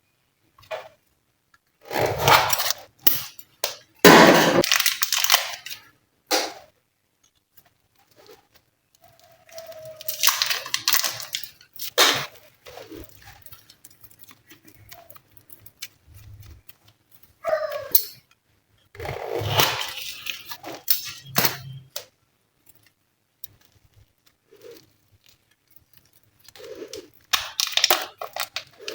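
Glossy slime being pressed, stretched and worked by hand, giving sticky crackling and popping in bursts of a few seconds with short quiet gaps between them.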